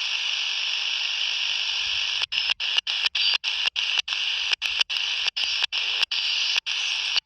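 Open-squelch band noise from a Retevis RA79 walkie-talkie's speaker receiving the 27 MHz CB band in USB between stations: a steady hiss. From about two seconds in, the hiss cuts out briefly and repeatedly, roughly three times a second.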